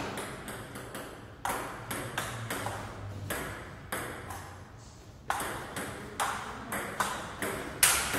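Table tennis rally: the ball clicking sharply off the paddles and the table, a hit about every half second. A pause of a second or so about halfway, then a new exchange with quicker, louder hits.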